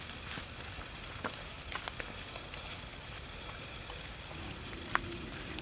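Wood fire under a spit-roast crackling and hissing steadily, with a few sharp pops; the loudest pop comes near the end.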